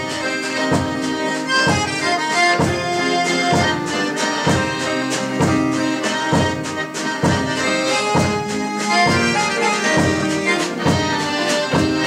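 Live band music: an accordion plays held, swelling notes over a steady drum beat of about two hits a second.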